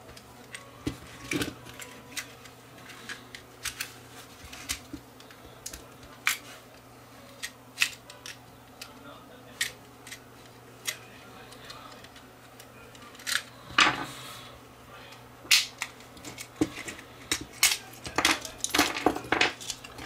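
Plastic housing of a Hubbell GFCI receptacle being pried open, its locking tabs snapping: irregular sharp clicks and cracks, coming thicker near the end.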